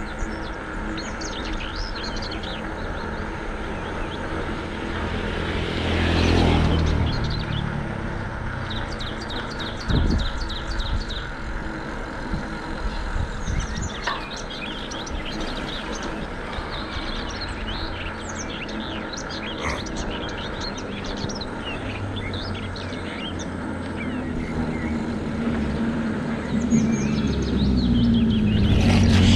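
Birds chirping over a steady hum of road traffic, with a vehicle's tyres swelling past about six seconds in, a single knock about ten seconds in, and another vehicle drawing nearer near the end.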